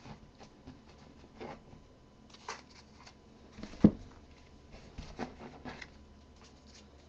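Scattered light handling noises of trading cards and their packaging being moved and set aside, with one sharper knock about four seconds in.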